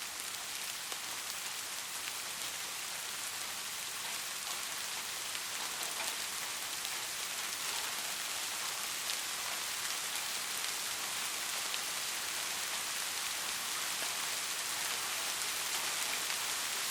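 Soft steady rain falling, an even hiss with scattered drop ticks, growing slightly louder over the stretch.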